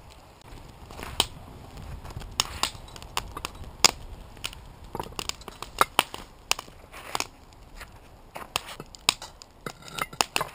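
Irregular crunches and sharp clicks, many a second at times: footsteps in snow and metal tools knocking against a cast-iron Dutch oven and its charcoal briquettes as the coals are tended.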